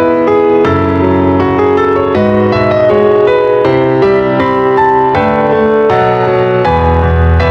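Background piano music: a melody of notes changing every few tenths of a second over held chords, with a deeper bass note coming in near the end.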